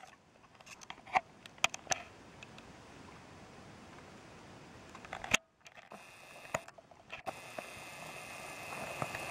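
Handling noise from a handheld camera: scattered sharp clicks and knocks on the camera body over a faint hiss. The sound drops out briefly about halfway through, and a thin steady tone joins the hiss near the end.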